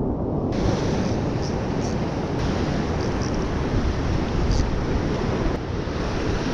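Rough sea surf breaking and washing over a rock ledge, with a rushing hiss of white water that sets in about half a second in, and wind on the microphone.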